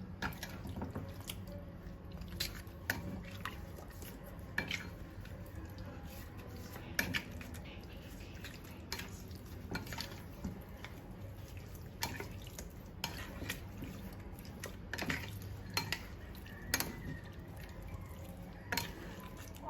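Raw chicken being mixed with salt and turmeric in a bowl: irregular light clicks and knocks against the bowl, with wet sounds in between.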